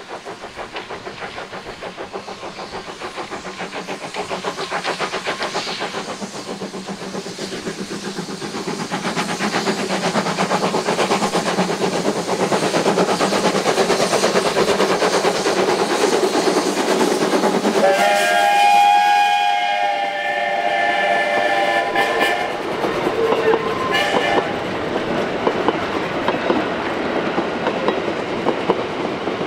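A narrow-gauge steam locomotive and its train running past, with steady rhythmic beats growing louder as it approaches. About two-thirds of the way through, its steam whistle sounds for about two seconds. Afterwards wheels click over the rail joints as the wagons roll by.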